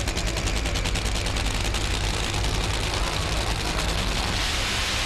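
Nitro Funny Car engines at full throttle during a drag-race pass, a very fast crackling rattle of exhaust pulses that smooths into a steady rush about halfway through.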